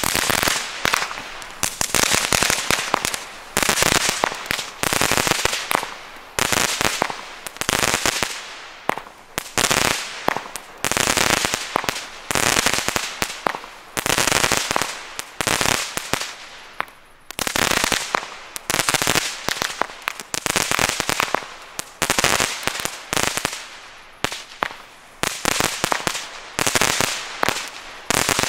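Lesli Zuckerpüppchen consumer firework battery firing shot after shot, roughly every one and a half seconds, each shot trailing off in a dense crackle.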